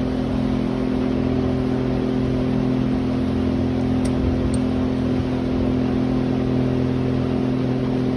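An engine running at a steady speed, an even hum that doesn't change, with two small clicks about four seconds in.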